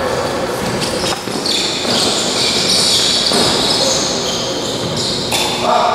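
Futsal players' shoes squeaking on the hard indoor court, high and shifting in pitch, with a few sharp knocks of the ball being struck or bouncing.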